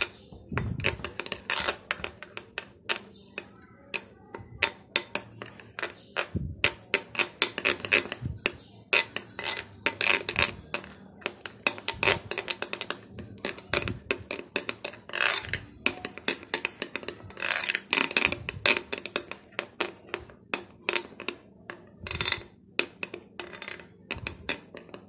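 A metal spoon beats a thick coffee, sugar and cocoa mixture by hand in a small glass bowl, clinking rapidly and irregularly against the glass, several strikes a second, with brief lighter stretches.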